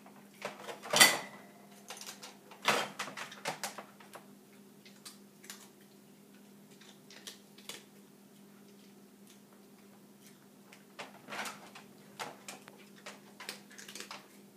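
Small dog eating from a stainless steel bowl in a wire crate: clinks and crunches come in two spells, with a quiet stretch between. The loudest is a clank about a second in that rings briefly.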